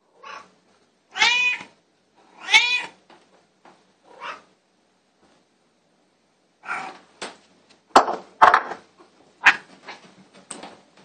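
Domestic cat meowing: two loud meows that rise and fall in pitch about a second in and at about two and a half seconds, with a few fainter, shorter calls around them. In the second half come several sharp knocks and rustling.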